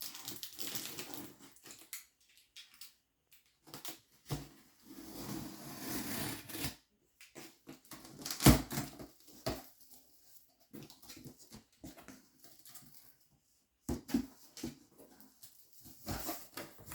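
A cardboard box being opened by hand: tape and cardboard tearing and packaging rustling in stretches, with scattered clicks and one sharp knock about eight and a half seconds in.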